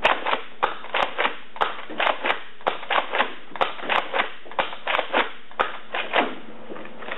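Nerf Raider pump-action spring dart blaster being pumped and fired over and over, a rapid run of sharp plastic clacks at roughly three a second.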